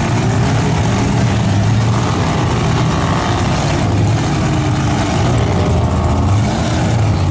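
Off-road vehicle engine running loudly and steadily, its pitch shifting slightly as it revs.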